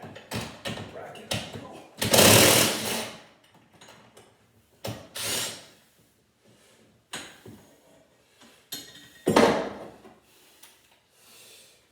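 A socket tool driving bolts, heard as a few short runs of mechanical clatter about a second each, with clicks and knocks between them. The loudest run comes about two seconds in.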